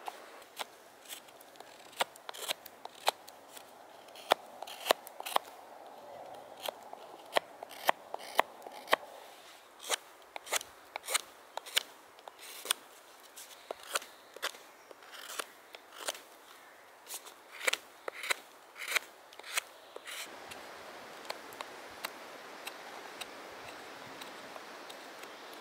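A carving knife slices shavings off birch wood as a kuksa is shaped, making crisp snicking cuts, about one or two a second. About 20 seconds in, the cuts thin out to a quieter, steadier scraping as a hook knife hollows the cup's bowl.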